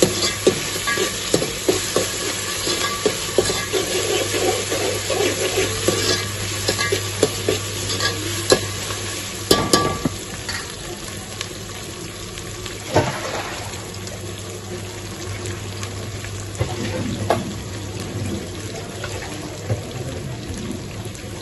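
Sliced onions and whole spices sizzling as they fry in a hammered aluminium pot. A steel spoon stirs and scrapes against the pot for roughly the first half, with a couple of sharper knocks around the middle. After that the frying sizzles on with only the odd click.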